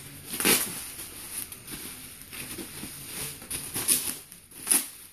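Plastic bubble wrap crinkling and rustling as it is pulled and unwrapped from around a shoebox, with a few sharper, louder rustles about half a second in and twice near the end.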